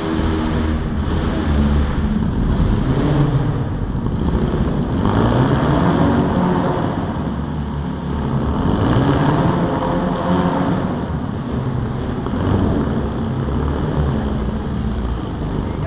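Compact demolition-derby cars' engines running and revving, their pitch rising and falling again and again.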